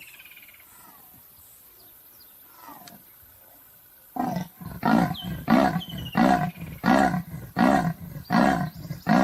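Leopard giving its sawing call: a run of rasping grunts, about two a second, starting a little under halfway through. Before it, a few faint bird chirps.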